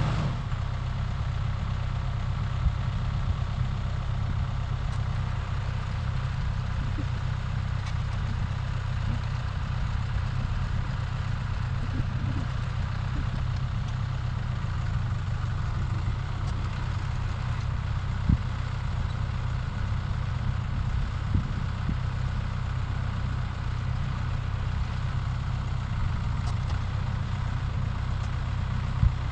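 A vehicle engine idling steadily with a low hum, with a few light knocks.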